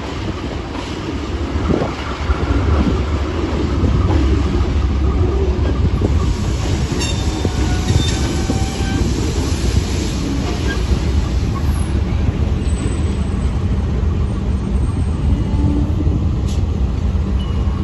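A train moving along the track with a steady, heavy low rumble of locomotive and wagons. Faint high squealing tones, typical of wheels on rail, come in around the middle.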